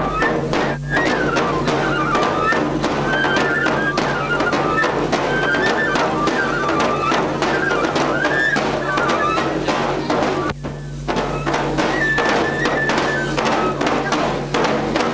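Neputa festival hayashi: a bamboo flute playing a wavering melody over fast, dense taiko drumming. The music dips briefly about ten and a half seconds in.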